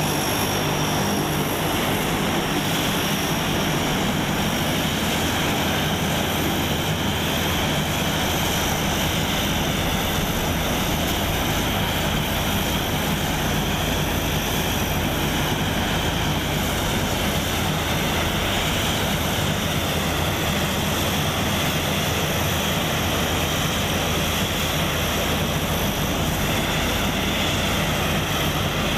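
Convair CV-580's Allison 501 turboprop engines running at taxi idle: a steady high turbine whine over the even drone of the propellers, unchanging throughout.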